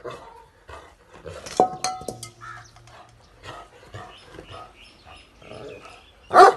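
A metal dog bowl clanks sharply once about a second and a half in and rings briefly, among small knocks and scuffs from a dog moving on straw and dirt. A short, loud animal call comes near the end.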